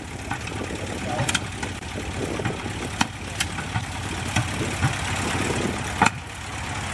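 Piston aircraft engine idling with a low, steady rumble, with a few sharp clicks scattered through.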